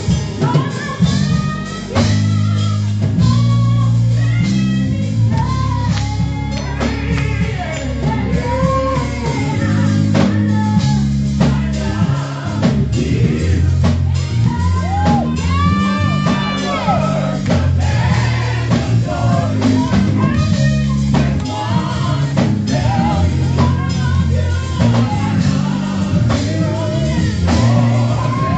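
Gospel music: singing over a band with a bass line moving in steps, drums and guitar.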